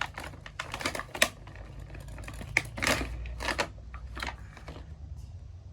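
Small plastic doll parts being handled, irregular clicks and scrapes as shoes are fitted onto the doll's feet. The clicks come in clusters and die away near the end.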